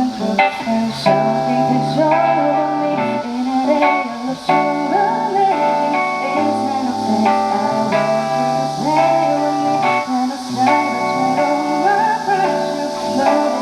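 Live music: guitar accompaniment with a gliding melody line over steady chords.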